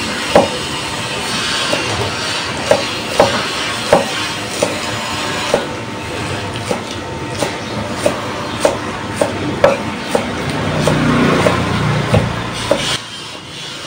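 Cleaver chopping spring onions on a thick round wooden chopping block: sharp knocks of the blade on the wood, about one to two a second, over a steady background noise. A low rumble swells for a couple of seconds near the end.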